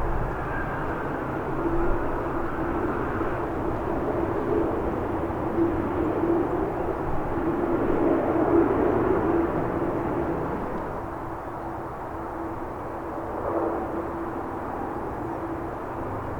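Boeing 787-10 airliner's jet engines running with a steady held tone over a broad rumble, swelling about halfway through and easing off after, with gusty wind on the microphone.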